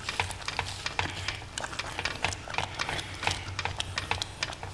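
Wooden spoon stirring thick dal in a metal pot, with quick irregular clicks and knocks of the spoon against the pot.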